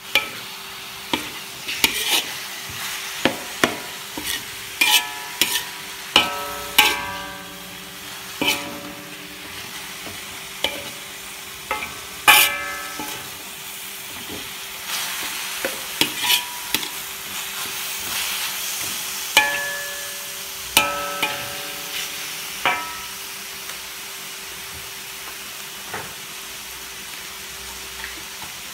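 A metal spoon scraping and knocking irregularly against a large metal wok while raw ground meat with onion and garlic is stirred. The harder knocks leave the wok ringing briefly, and a light frying sizzle sits underneath. The knocks grow sparse near the end.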